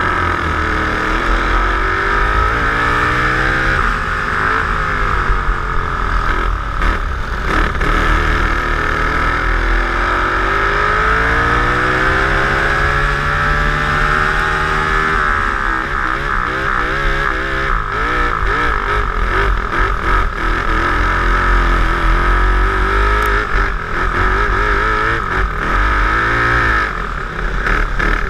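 Twin-engine dirt kart's engines heard from on board, revving up along the straights and dropping off into the corners again and again; the longest climb in pitch, about halfway through, falls away sharply.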